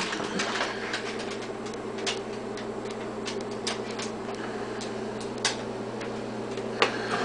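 Scattered clicks and light rustles of a cardboard box and its packaging being handled, with a few sharper clicks, over a steady low hum.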